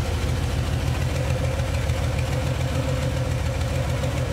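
Carburetted 350 V8 in an HG Holden idling steadily, a fairly smooth idle that is not very lumpy.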